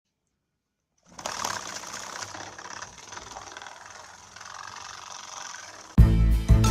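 A small 12-volt DC motor running steadily with a rattle, spinning a homemade cardboard toy washing machine. It starts about a second in, and loud music cuts in near the end.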